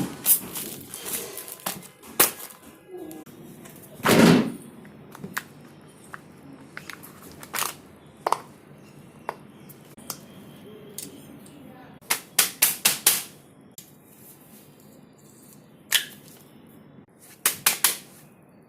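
Fidget toys being handled and popped: sharp clicks and pops, some in quick runs of four or five, with one louder, longer clatter about four seconds in.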